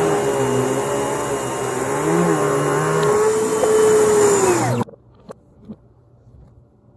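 Hoover WindTunnel MAX bagged upright vacuum running loudly with a wavering motor note, played backwards. Just under five seconds in, the pitch sags and the sound cuts off abruptly: the vacuum's switch-on heard in reverse. A few faint taps follow.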